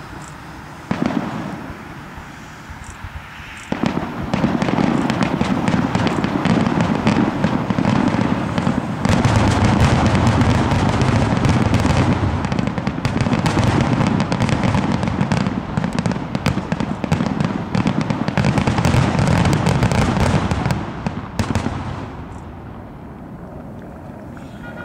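Aerial fireworks display: a single bang about a second in, then from about four seconds in a dense barrage of shell bursts and crackling, the booms overlapping almost without a break for some eighteen seconds before dying away.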